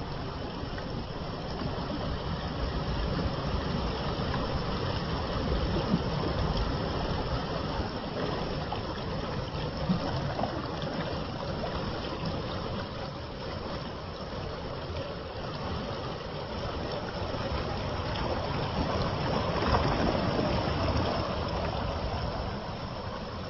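Water running steadily, a continuous rushing wash that swells louder a few seconds in and again near the end, with a couple of brief sharper spikes.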